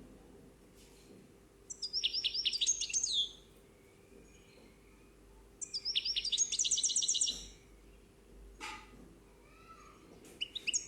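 A small songbird singing: two trilled phrases of rapidly repeated high notes, each about a second and a half long, about two and six seconds in, then a few short chirps near the end. A faint steady hum lies underneath.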